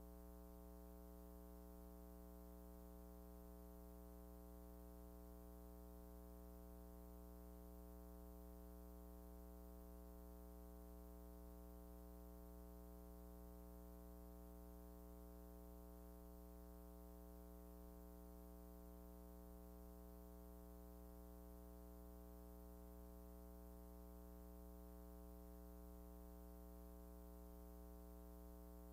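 Near silence apart from a faint, steady electrical hum with a stack of overtones and no other sound.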